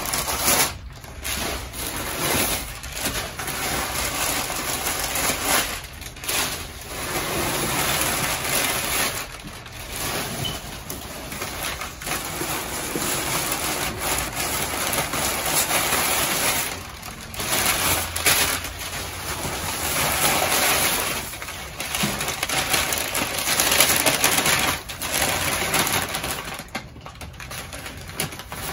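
Brown kraft packing paper and tissue paper crinkling and rustling as they are pulled and crumpled out of a cardboard box, in long stretches broken by a few short pauses.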